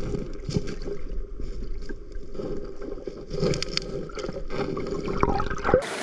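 Stream water sloshing and splashing as a vinyl fish trap is lifted out of the water, in irregular splashes over a steady low rumble.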